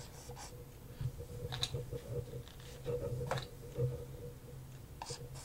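Marker pen writing on a whiteboard: a few short, faint scratches and squeaks of the pen strokes.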